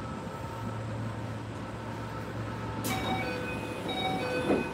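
Steady low hum of a stopped electric commuter train's onboard equipment. About three seconds in, a click and then a short electronic chime of several stepping notes plays, followed near the end by a brief thump.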